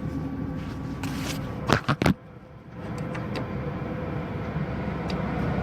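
A few sharp plastic clicks and knocks close together about two seconds in, as a small wedge bulb and its socket are handled and pushed together, over a steady low background rumble.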